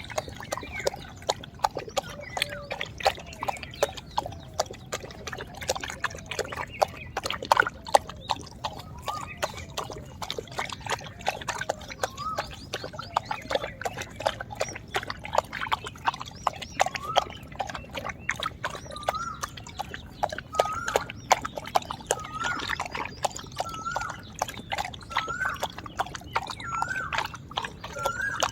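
A dog lapping water from a pot, a long run of quick, wet laps and splashes. From about halfway on, a short rising chirp-like tone repeats roughly once a second.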